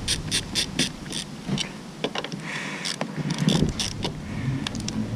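Hand socket ratchet clicking as 10 mm bolts are backed out, in a quick even run of clicks at first and then in sparser bursts.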